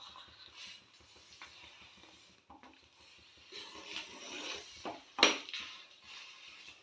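Steel spoon stirring and scraping thick cooked semolina (upma) in a metal pan, mixing in ghee, with soft, irregular scrapes. A sharp clink of the spoon against the pan a little after five seconds is the loudest sound.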